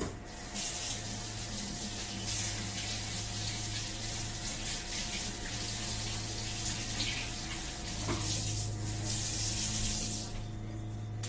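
Kitchen tap running as hands are washed under it: a steady rush of water that starts about half a second in and stops near the end.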